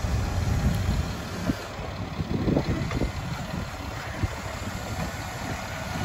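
Box truck's hydraulic liftgate working: its pump motor runs steadily as the platform tilts and folds, with a few metal clunks about two to three seconds in.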